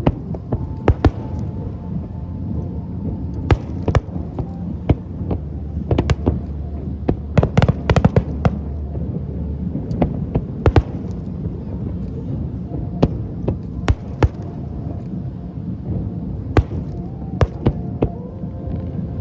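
Aerial fireworks going off: a string of sharp bangs at irregular intervals, bunched most thickly about eight seconds in, over a steady low rumble.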